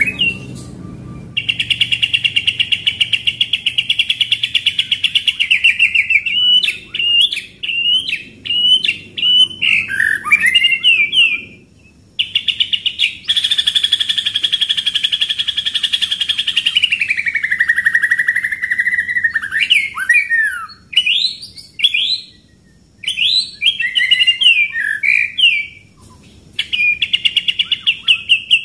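White-rumped shama singing a loud 'pastol' song of long, very fast rattling trains of notes. One train slides down in pitch partway through, and short varied whistled phrases and brief pauses come between the trains.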